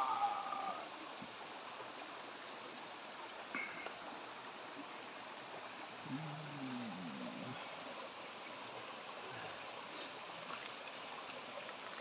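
Faint steady ambience of a shallow rainforest stream running over stones. About six seconds in, a low drawn-out call lasting about a second and a half, dipping in pitch.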